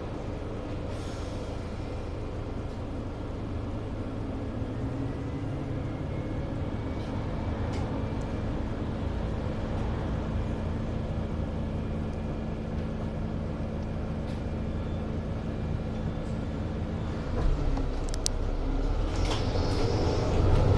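Mercedes-Benz city bus running under way: the engine and drivetrain hum rises in pitch over the first several seconds as the bus gathers speed, then holds steady. About three-quarters through it grows louder with a deeper rumble, and a short hiss of air comes near the end.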